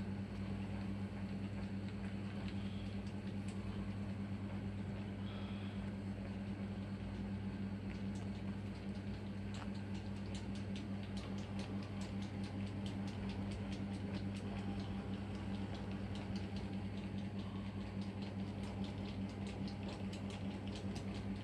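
A steady low electrical hum, with faint light clicks and scratches setting in about a third of the way through as kittens' claws catch on the bedding during play.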